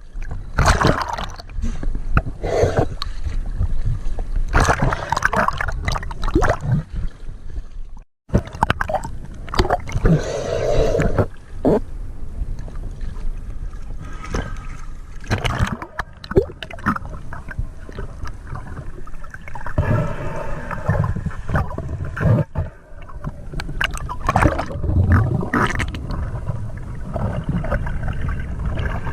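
Water gurgling and sloshing in irregular surges, with a brief cut to silence about eight seconds in.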